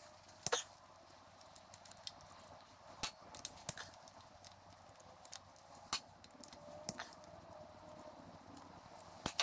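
Screwdriver clicking and scraping against the cam seal housing of a Yamaha XS650 cylinder head while prising at the old cam seal: scattered sharp metal clicks. The loudest come about half a second in, around three and six seconds, and just before the end.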